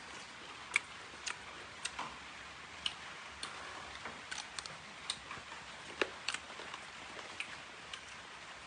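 Eating noises: scattered sharp clicks and taps at an irregular pace, over a faint steady hiss.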